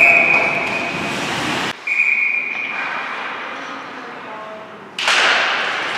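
A referee's whistle blown twice: a long shrill blast, then a short one, over rink noise. The sound drops out abruptly after the first blast, and loud crowd or rink noise comes back suddenly near the end.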